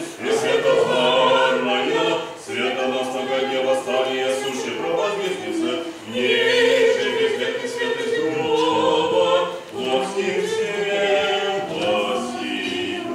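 Church choir singing an unaccompanied Orthodox liturgical hymn in phrases with short breaks between them.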